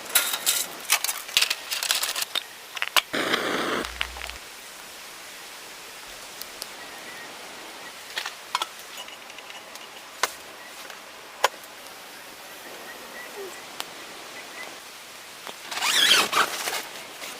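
Steady hiss with scattered sharp clicks and knocks, and bursts of rustling and handling noise in the first few seconds and again near the end.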